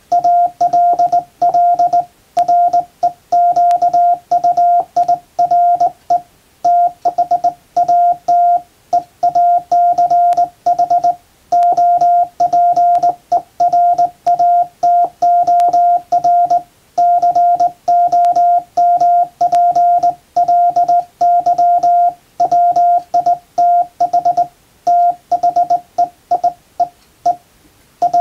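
Morse code sent by hand on a JRC KY-3A straight key, heard as a steady mid-pitched sidetone switched on and off in dots and dashes. It spells out English plain text.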